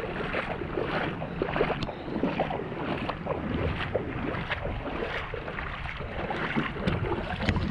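Shallow seawater splashing and sloshing around wading feet, in quick irregular splashes, with wind rumbling on the microphone.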